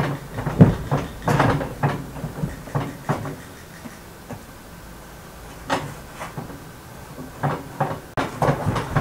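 Bread dough being kneaded by hand in a metal bowl: irregular soft slaps, squelches and knocks, with a pause of about two seconds in the middle.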